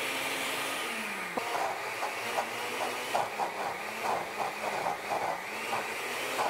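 Countertop blender motor running on a thick load of cooked white beans, its whine dipping and rising as the dense paste drags on the blades. From about a second and a half in, a quick run of knocks, about three a second, as the bean mass is pushed down into the blades with a long utensil.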